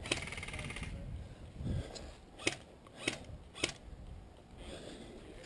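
An airsoft gun being worked while it jams: a brief buzz at the start, then three sharp clicks a little over half a second apart. The gun is said to be jamming because it is dirty.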